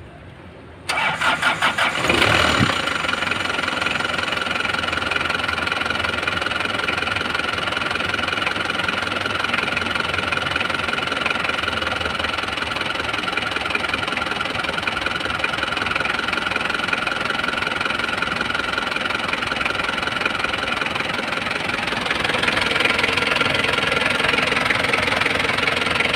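Car engine cranked by its starter and catching about a second in, then idling steadily; the sound grows louder and fuller near the end. The engine is run with the upper radiator hose off so that its water pump flushes water out through the engine block.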